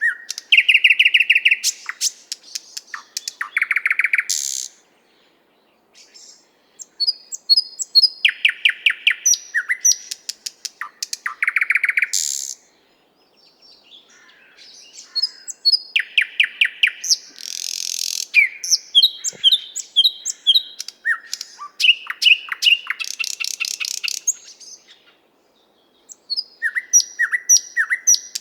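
Thrush nightingale singing: phrases a few seconds long of rapid repeated notes, clicks and trills, separated by brief pauses.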